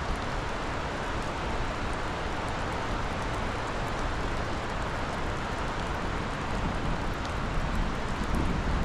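Swollen, flooding river rushing with a steady hiss of water, with a brief low rumble near the end.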